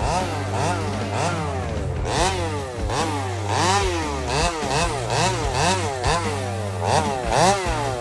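Chainsaw engine running and revved up and down in quick blips, about two a second.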